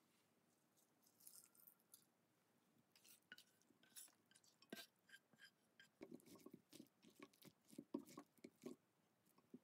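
Faint scraping as fried bacon and garlic are scraped out of a frying pan onto steamed vegetables in a glass bowl. From about six seconds in, a run of soft clinks and rustles follows as a serving spoon tosses the vegetables against the bowl.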